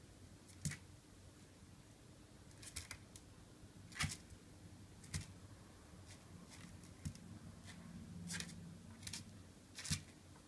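Small Pekingese puppy playing on the pen's floor mat: scattered short clicks and scrapes at irregular intervals, about eight in all, the sharpest about four seconds in and near the end, over a faint steady hum.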